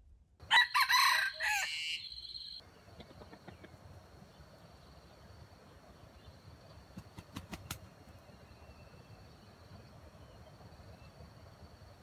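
A red junglefowl rooster gives one short crow, broken into several pieces, about half a second in. A steady high-pitched buzz carries on underneath afterwards.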